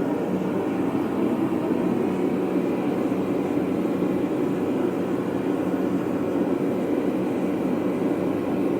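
Forge running steadily, a constant even rushing noise with a low hum, with no hammer strikes.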